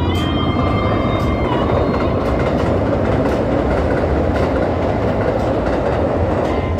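Electric passenger train running across a steel truss bridge: a loud, steady rush and rumble of wheels on rail.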